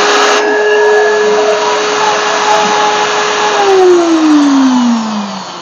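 Angle grinder's universal motor running at full speed with a steady whine, then switched off about three and a half seconds in and winding down with a falling pitch. It is a test run showing the previously rewound armature still works fine.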